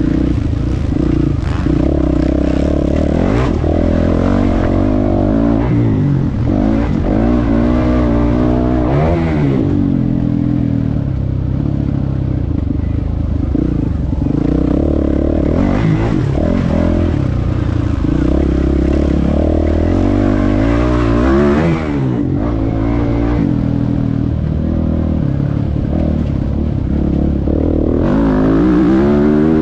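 MX1 motocross bike engine heard close up from a camera mounted on the bike, revving up and dropping off again and again as the rider accelerates, shifts and rolls off along the track. The pitch climbs in several long sweeps, and the engine briefly cuts back about 22 seconds in.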